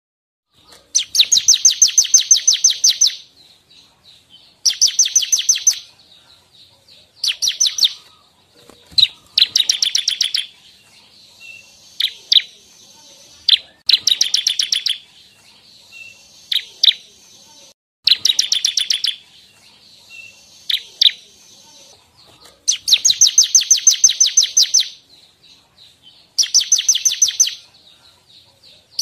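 Ciblek (bar-winged prinia) singing: bouts of rapid, evenly repeated high chip notes, about six a second, each bout lasting one to two seconds and coming back every few seconds, with single sharp chirps in the gaps.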